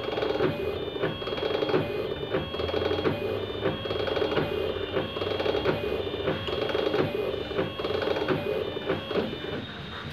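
Automatic paint tinting machine running as it dispenses colorant: a rhythmic mechanical whir with shifting pitched tones and clicks about twice a second.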